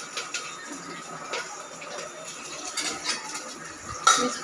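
Spices frying in oil in an open aluminium pressure cooker, a faint steady sizzle with a few light clicks. Near the end a metal spoon knocks sharply against the pot.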